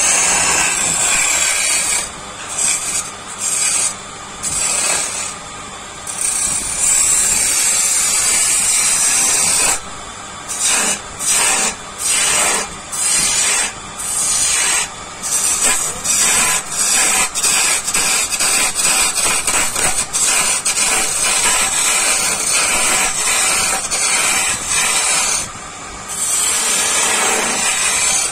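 Hissing that starts and stops repeatedly in short bursts of about a second, with longer unbroken stretches between about 6 and 10 seconds in and again near the end.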